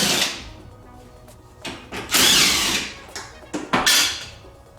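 Three bursts of scraping and rattling from the plastic and metal parts of a Suzuki Eiger ATV as its gas tank is worked free. The loudest comes about two seconds in.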